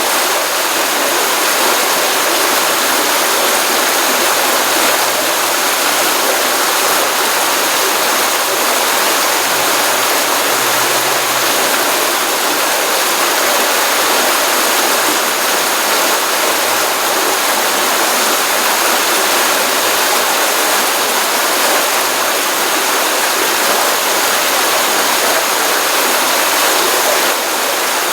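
Stream water running steadily: a constant, even rush of flowing water.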